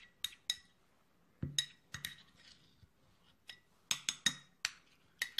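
Metal spoon clinking and scraping against a cut-glass bowl while stirring a thick paste, in irregular clinks, some with a short glassy ring, and a bunch of them about four seconds in.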